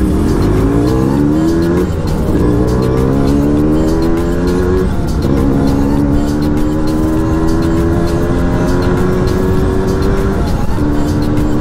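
Motorcycle engine accelerating up through the gears. The pitch climbs in each gear and drops at three gear changes, about two seconds in, about five seconds in and near the end. It rises only slowly in the longest, higher gear.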